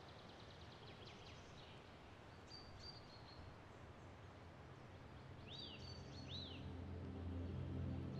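Faint outdoor ambience with small birds chirping: a quick trill near the start, a few short high calls, and two arching calls about two-thirds of the way in. A soft ambient music drone fades in over the last couple of seconds.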